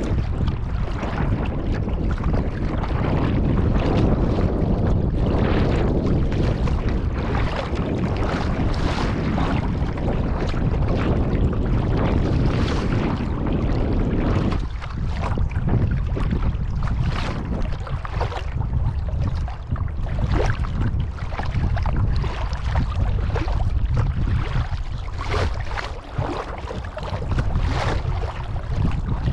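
Water splashing and sloshing around a kayak, with many short, irregular splashes, under a heavy wind rumble on the microphone.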